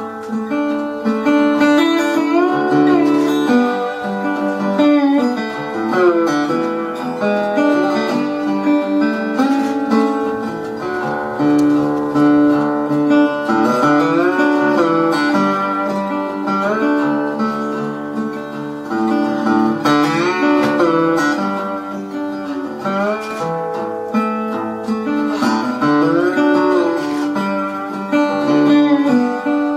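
Instrumental guitar music: a plucked and strummed acoustic guitar with notes that slide up and down in pitch.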